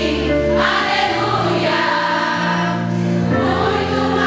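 Christian praise and worship song: voices singing together over held chords that change a couple of times.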